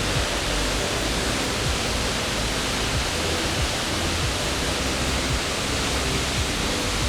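Steady, unbroken rush of a waterfall: falling water hissing and rumbling evenly from low to high pitch.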